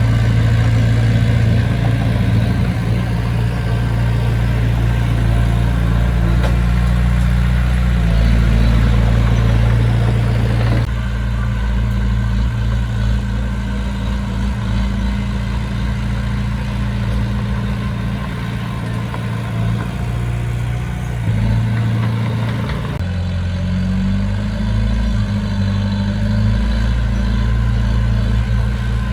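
Engine of heavy construction machinery, a dump truck or bulldozer, running steadily at low revs with a deep rumble; the engine note changes abruptly about 11 and 23 seconds in.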